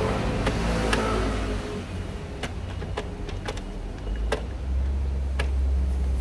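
Plastic wiring-harness connectors and clips clicking as they are handled on top of a BMW N54 engine, several sharp separate clicks over a steady low hum.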